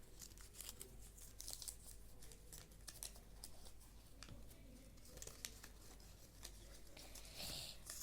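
Faint rustling and crinkling of paper envelopes being handled and opened, with scattered small ticks and a slightly louder rustle near the end.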